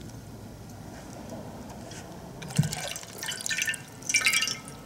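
Water poured from a glass pitcher over a hand, splashing and trickling into a glass bowl of water in three short spells in the second half.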